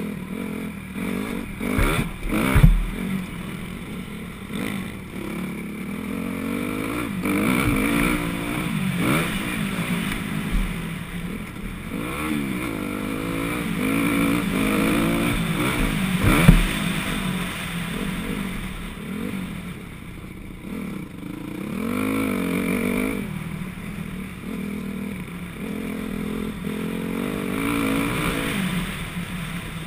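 2004 Honda CRF250R's single-cylinder four-stroke engine revving up and down over and over as the dirt bike is ridden hard on a motocross track, its pitch rising and falling with each throttle change and gear shift. Two sharp thumps stand out, about two and a half seconds in and again about sixteen seconds in.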